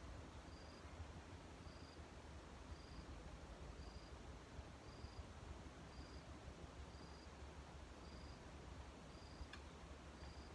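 Near-silent outdoor ambience with a faint, short, high chirp repeating evenly about once a second, as from a calling insect; a single faint click sounds near the end.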